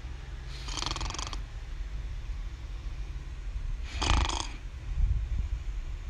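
A young girl snoring in her sleep: two snores about three seconds apart, over a steady low rumble.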